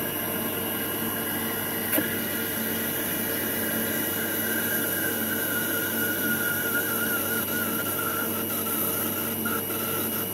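Brother HS300 wire EDM machine cutting with its head submerged in the water tank: a steady mechanical hiss and hum with a thin whine that starts to waver in pitch in the second half. A single click about two seconds in.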